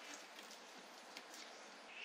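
Near silence: faint outdoor background hiss with a few soft, scattered clicks.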